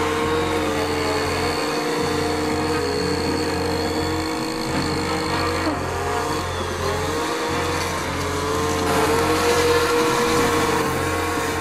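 Petrol brushcutter engine running at a steady high speed, its pitch dipping briefly about halfway through and then coming back up.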